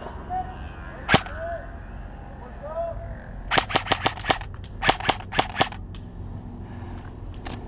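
Airsoft guns firing: a single sharp shot about a second in, then two quick strings of shots, about seven and then five in rapid succession, and one more near the end.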